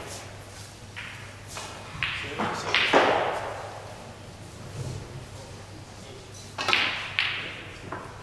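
Snooker balls clicking as the cue strikes the cue ball and the balls knock together, about eight sharp clicks with a ringing echo, the loudest about three seconds in.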